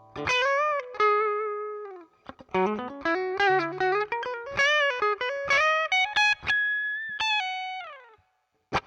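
Electric guitar played through a Zoom G2Four's Fender Deluxe Reverb amp simulator: a single-note melodic lead with vibrato, string bends and a slide up, the last note ringing and fading out about eight seconds in. A few short, sharp picked notes follow near the end.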